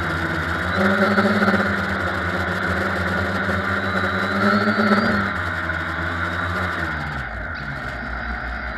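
Quadcopter motors and propellers humming, the pitch swelling and sagging twice as throttle changes, over a steady high whine. About seven seconds in the hum falls away and a low rumble takes over.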